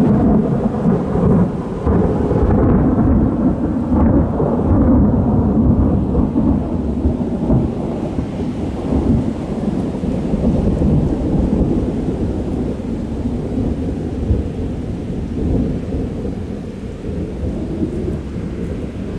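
Thunder: it breaks suddenly and loud, then rolls on as a long low rumble that slowly dies away.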